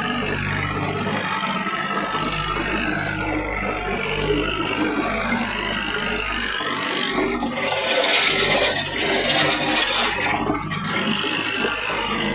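Fiat 480 tractor engine running steadily under a loud rattling, scraping mechanical din, which gets louder and hissier a little past the middle.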